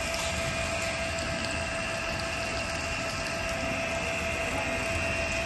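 Steady mechanical hum and whirr with a faint constant high whine, unchanging throughout.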